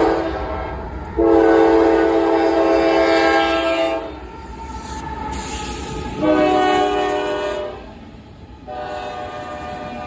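Locomotive air horn on CSX local freight L644, sounding loud chord blasts: the tail of one blast, a long blast, a shorter one, then another long one that runs on. This long-long-short-long pattern is the grade-crossing signal.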